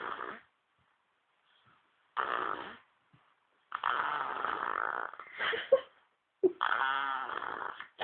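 Baby snoring: a run of uneven snores with short quiet gaps between them, two of them stretching past a second, the last one with a buzzing pitch.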